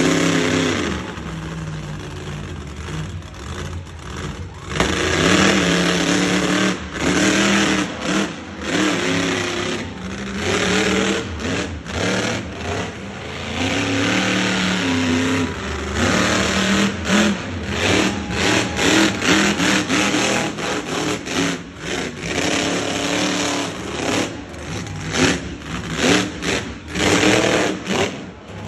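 Monster truck engines revving hard and repeatedly, the pitch rising and falling with each burst of throttle.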